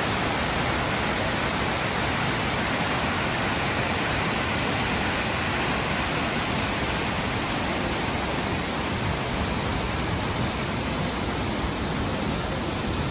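Brandywine Falls: water falling, heard as a steady, even rush that does not change.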